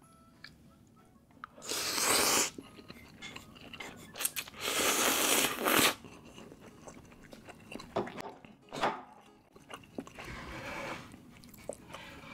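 Close-up eating of spicy laksa instant noodles: two long, loud slurps about two and five seconds in, with chewing and short wet mouth clicks between and after.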